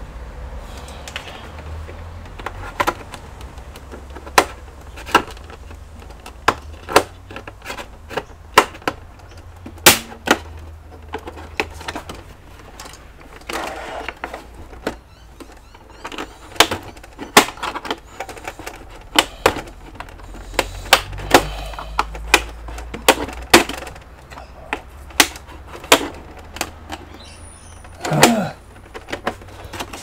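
Plastic clips of an HP 20-c all-in-one's back cover clicking and snapping as the panel is pried loose: many sharp clicks at an irregular pace, about one or two a second.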